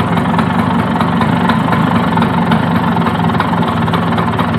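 1994 Bajaj Super 150 scooter's single-cylinder two-stroke engine idling steadily, running again for the first time after sitting unused for about four years.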